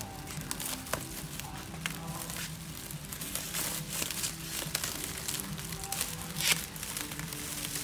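Clear plastic wrap being pulled and torn off a packaged model: a continuous crinkling and crackling, with a sharper crackle about six and a half seconds in.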